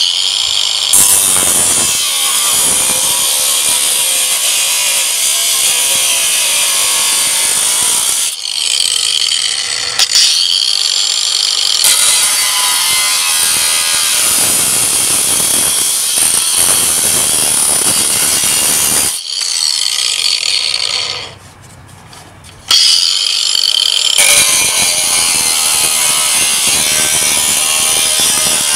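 Ryobi cordless angle grinder with a cutoff disc cutting through a sheet-metal heat shield: a loud, high whine with the hiss and screech of the disc biting the metal. It drops away for about a second and a half roughly two-thirds of the way through, then starts cutting again.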